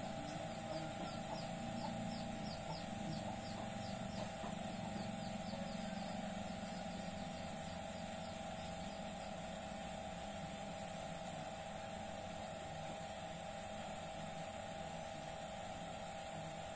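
A steady background hum with a few held tones running through it. Over the first four seconds or so, a rapid series of short, high, falling chirps comes about four times a second.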